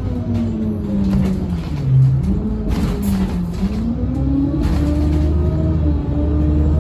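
City bus engine and drivetrain heard from inside the cabin: the engine note drops for about two seconds, then climbs steadily as the bus picks up speed and holds a higher note near the end, with a few brief rattles in the middle.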